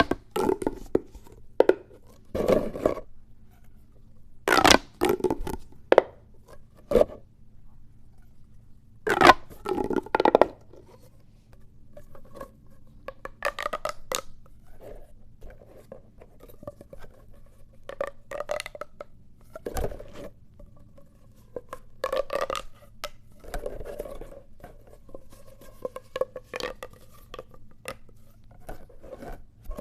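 Plastic pop tubes being stretched and squashed, their ribbed sections snapping open and shut in irregular crackling bursts. The bursts are louder and further apart in the first ten seconds or so, then softer and quicker.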